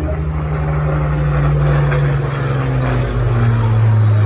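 Supermarine Spitfire's V12 piston aero engine running as the fighter flies overhead, getting louder toward the end, with its pitch dropping about three seconds in as it passes.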